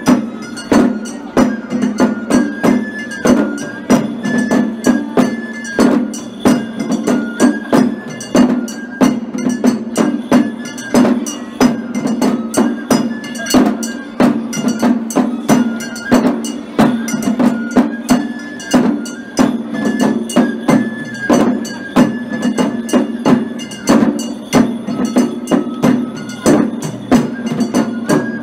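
Japanese ohayashi festival music: shime-daiko drums beaten with sticks in a fast, steady rhythm, with a high bamboo flute (shinobue) playing a melody in short held notes over it.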